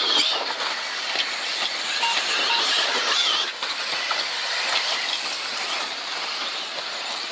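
Radio-controlled off-road race cars running around a turf track, with a steady high-pitched whine of their motors wavering in pitch as they accelerate and brake.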